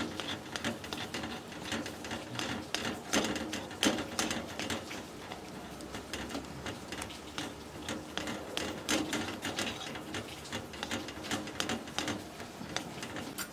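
A spoon stirring and scraping around a steel kadai of milk cooking down into khoya, with irregular light clicks and scrapes. The mixture is kept moving so it does not stick or form lumps.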